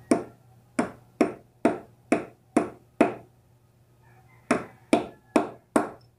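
Hammer tapping the end of a steel rod used as a drift to drive a 6902 sealed bearing into a bicycle freehub body: sharp, ringing metal strikes, seven about two a second, then after a pause of about a second and a half, four more.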